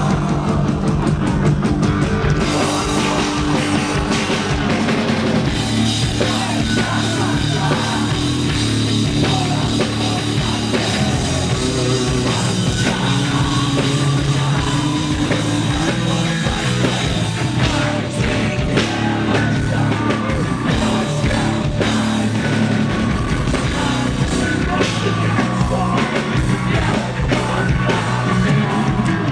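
A rock band playing live: drum kit and guitars, with singing.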